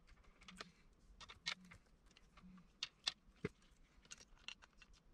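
A dozen or so faint clicks and light taps from 3D printer parts being handled: the plastic-and-metal hot-end carriage and an aluminium extrusion arm. The sharpest taps come about three seconds in.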